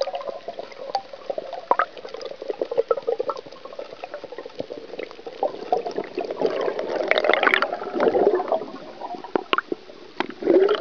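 Underwater recording: water gurgling and sloshing around the camera as the diver moves, with many scattered sharp clicks, swelling louder around the middle and again near the end.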